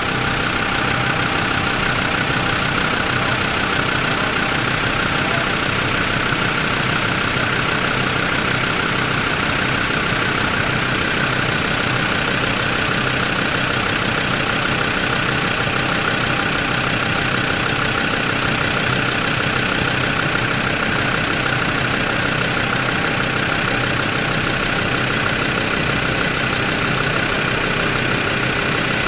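A vehicle engine running steadily, its sound and level unchanging throughout.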